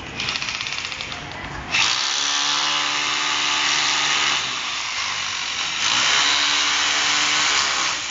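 Corded electric drill drilling into the balcony wall. It starts with a fast rattle, then runs loud and steady. It eases about halfway through, then picks up again.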